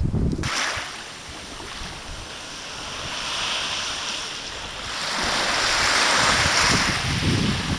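Sea surf washing against the shore: a steady hiss that starts about half a second in and swells twice, with wind buffeting the microphone.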